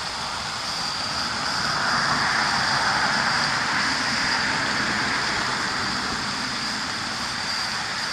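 Rushing noise of a passing vehicle, swelling about a second or two in and slowly fading over the next few seconds.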